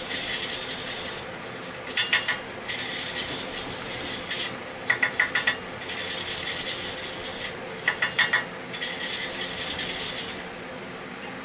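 Valve of a 3.5 hp Briggs & Stratton L-head engine being hand-lapped into its seat with a lapping stick and 400-grit silicon carbide compound: stretches of gritty rubbing, each a second or so long, broken three times by short clusters of light clicks.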